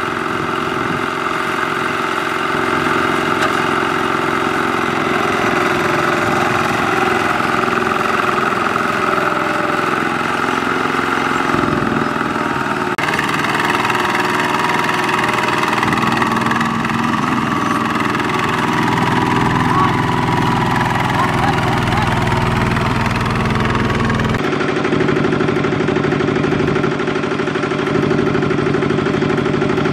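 Single-cylinder diesel engine of a two-wheel walking tractor running steadily under load as it pulls a loaded trailer stuck in deep mud.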